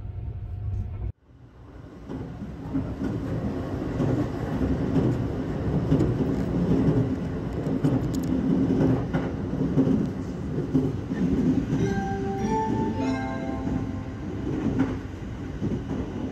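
Sunrise Izumo sleeper train running, heard from inside a compartment: a steady rumble of wheels on rail that swells over the first few seconds, then holds. A short run of pitched tones comes in about twelve seconds in.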